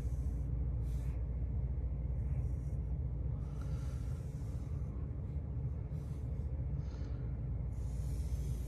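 Wooden graphite pencil drawing lines on paper: several separate scratchy strokes, each a fraction of a second to about a second long, over a steady low hum.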